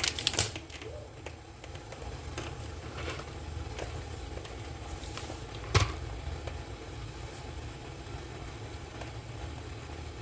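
Pot of water on a stove burner heating toward the boil, a steady low fluttering rumble as it starts to bubble. A few small clicks and a sharp knock about six seconds in.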